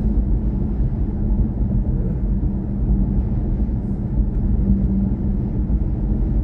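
Steady low road and tyre rumble inside the cabin of a BMW i4 M50 electric car driving at speed, with a faint steady hum under it.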